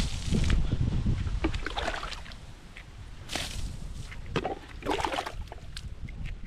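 Water splashing and sloshing in irregular bursts as it is poured onto fresh concrete to cure it, with wind rumbling on the microphone in the first second or so.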